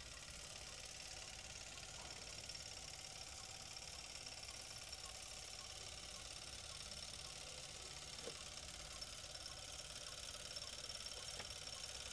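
Super-8 film projector running: a faint, steady mechanical whir.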